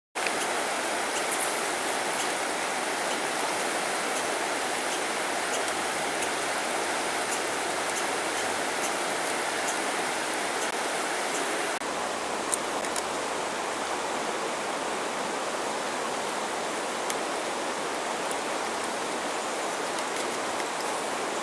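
Steady rushing of a fast river over rocks and riffles, an even wash of water noise with a slight shift in tone about halfway through.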